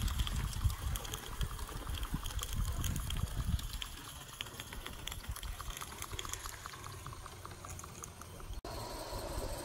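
Gauge One live-steam locomotive running along the track, with rapid, irregular sputtering and ticking, quieter after about four seconds. Near the end it cuts abruptly to a steadier hiss.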